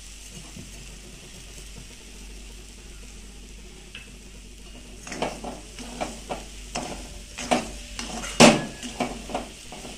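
Steel spatula stirring semolina sheera in a metal kadhai as sugar is mixed in. The first half is only a faint low sizzle; from about halfway come repeated scraping strokes of the spatula against the pan, one or two a second, the loudest near the end.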